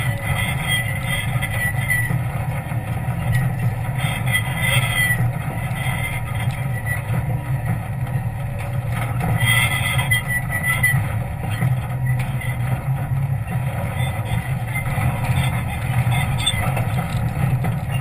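Jeep engine running at low speed under load as it crawls up a steep, rocky trail: a steady low drone, with two brief higher-pitched squeaks about four and ten seconds in.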